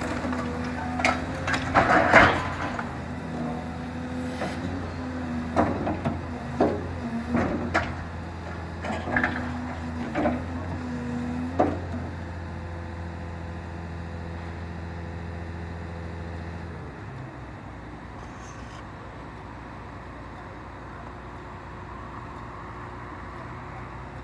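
Demolition excavator's diesel engine running under hydraulic load, with repeated knocks and clatters of brick and concrete block as the attachment works the wall. The knocks are loudest about two seconds in and stop at about twelve seconds. At about seventeen seconds the engine drops to a quieter, lower note.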